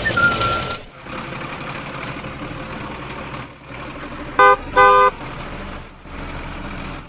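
A vehicle horn toots twice, two short blasts about four and a half and five seconds in, over a steady background of vehicle noise. A high whistled note sounds at the very start.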